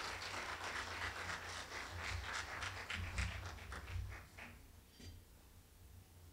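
Faint scattered applause from an audience, dying away about four and a half seconds in.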